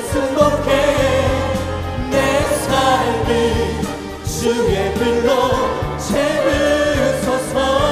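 A live worship band plays a Korean praise song while a lead singer and choir sing, with the congregation clapping along.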